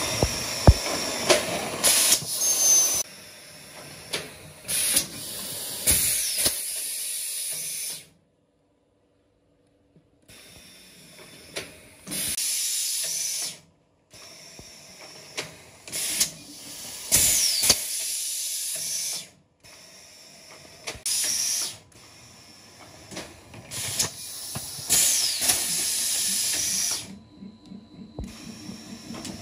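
Pneumatic PET bottle blow-moulding machine: repeated bursts of compressed-air hiss, each a second or two long, as heated preforms are blown into bottles and the air vents. Sharp clicks and clanks of the pneumatic cylinders and mould come between the bursts.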